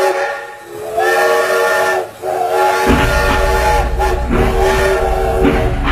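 Train whistle sounding a chord of several tones in long blasts: the tail of one blast at the start, then three more of about one to one and a half seconds each. About three seconds in, the low rumble of the moving train comes in beneath the whistle.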